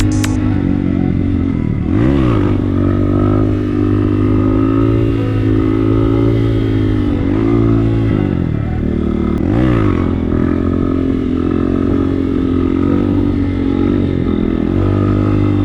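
Motorcycle engine running under way. The engine's pitch drops and climbs back twice, about two seconds in and again near ten seconds, as the revs fall and pick up.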